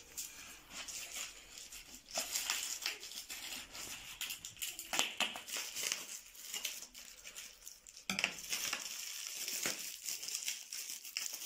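Plastic bubble wrap crinkling and rustling in irregular crackles as wrapped beer bottles are unpacked by hand.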